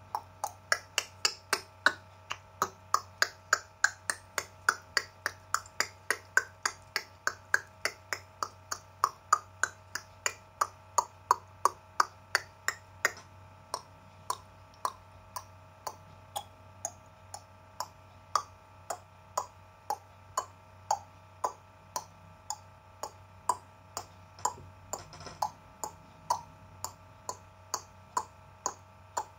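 A long run of sharp, dolphin-style tongue clicks made with the mouth, about three a second at first with their pitch shifting up and down, slowing to about two a second after the halfway point.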